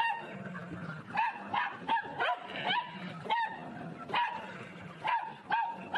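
Small dogs barking: about a dozen short, high-pitched barks in quick, irregular succession.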